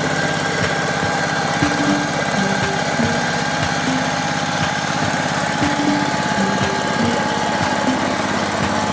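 Two-wheel hand tractor (power tiller) engine running steadily under load, with a fast, even chugging beat, as its cage wheels plough through a flooded rice paddy. Occasional knocks sound over the engine.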